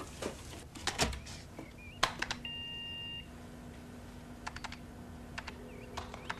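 Home computer in use: scattered keystroke clicks on its keyboard and one short electronic beep from the computer about two and a half seconds in, over a low steady hum.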